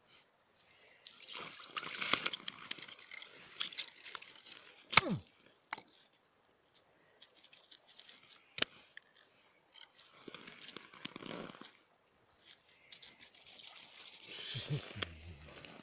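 Crunching and scraping on ice, with clothing rustle, as an ice fisherman crouched at the hole handles fish and tackle. The sound comes in irregular bursts with a few sharp clicks, the loudest about five seconds in.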